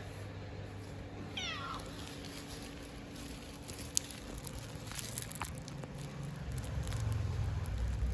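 A cat meows once, a short call that falls in pitch, about a second and a half in. A few sharp clicks follow, then a low rumble that grows louder near the end.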